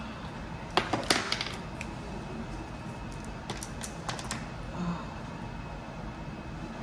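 A few light, sharp clicks and taps from small hard objects, in two short clusters: about a second in and again about three and a half seconds in.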